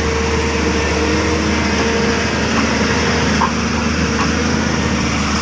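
Volvo tracked excavator's diesel engine running steadily under working load, with pitched tones that shift as the boom and bucket move soil. A few faint knocks come a little past the middle.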